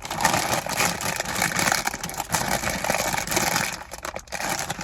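Crinkling and rustling of a plastic bag or packaging being handled.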